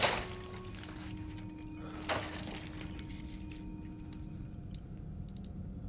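Film soundtrack ambience: faint steady ringing tones with two brief soft swishes, one at the start and one about two seconds in.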